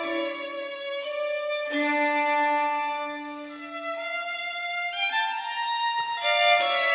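Background instrumental music: a slow melody of long held notes, changing pitch every second or so.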